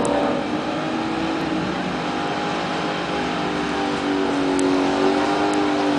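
Car engines idling with a steady pitched drone that wavers slightly and rises a little about four seconds in.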